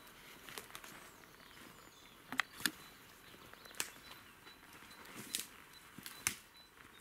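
Footsteps through dry leaf litter and twigs, with a handful of sharp snaps spaced about a second apart, two close together a little past two seconds in.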